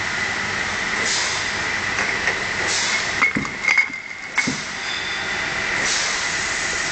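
Bottling-line machinery running with a steady hum and a constant high whine, glass bottles clinking a few times midway, and short hisses about every second and a half.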